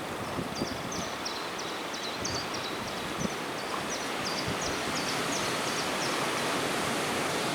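Steady wind noise on the microphone, with a run of short high chirps repeating two or three times a second for about five seconds.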